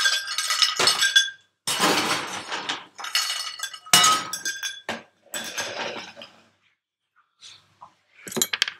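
Ice clattering and clinking against glass as a drink is made, in several rattling bursts over the first six seconds, then a few light clinks near the end.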